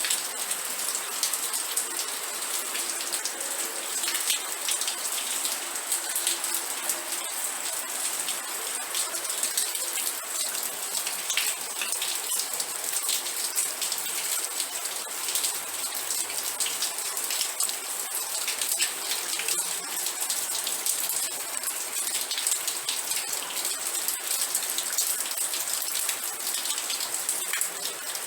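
Steady rain, with a dense patter of individual drops striking a surface.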